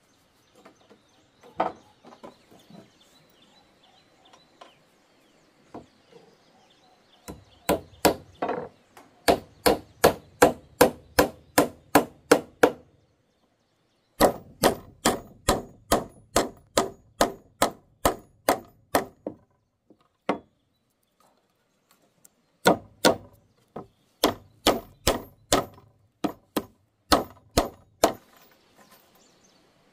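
A tool striking wood in rapid, evenly spaced blows, about two and a half a second, in three runs of a dozen or so strikes each, with short pauses between them.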